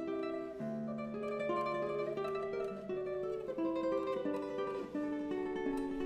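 Solo nylon-string classical guitar by luthier Rohan Lowe, played fingerstyle: a melody in the upper notes over sustained bass notes, changing note every fraction of a second.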